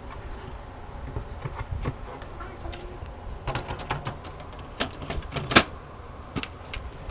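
Irregular clicks and knocks, some in quick clusters, the loudest about five and a half seconds in, over a steady low rumble.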